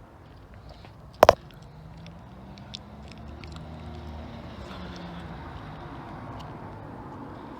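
A single sharp click about a second in, then a car engine running with a steady low hum, which rises a little in level soon after.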